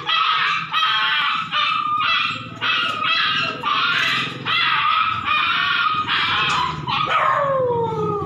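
A dog whining in a quick run of high-pitched cries, about ten of them, each roughly half a second long. A longer cry near the end falls steadily in pitch.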